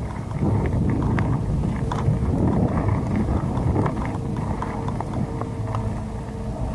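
Mountain bike rolling over loose gravel, the tyres crunching and the bike rattling with many small clicks and knocks, with wind buffeting a helmet camera's microphone.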